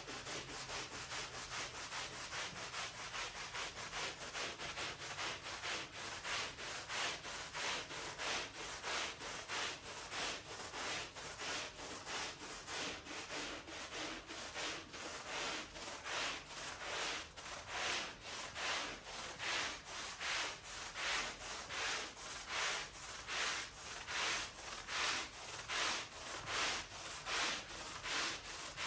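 A stiff-bristled push brush scrubbing a soapy, wet rug, with bristles rasping through the foam and pile in a steady back-and-forth rhythm of roughly two strokes a second.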